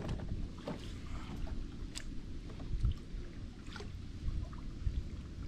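Low, fluctuating rumble of wind on the microphone and water around a fishing kayak, with a few scattered light ticks.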